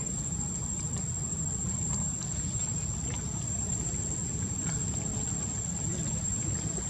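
Insects calling in one steady high-pitched note over a constant low rumble.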